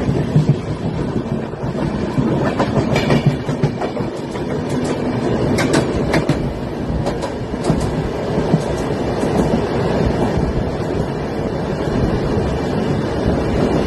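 Indian Railways train running on the track: a steady rumbling with sharp wheel clicks over the rails now and then, clustered in the middle.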